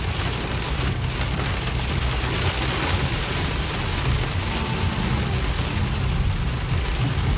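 Rain falling on a moving car, heard from inside the cabin, over a steady low rumble of engine and road noise.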